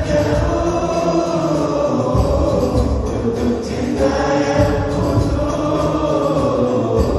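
Male solo voice singing a qasidah (Islamic devotional song) into a stage microphone, holding long wavering notes, with steady low accompaniment beneath.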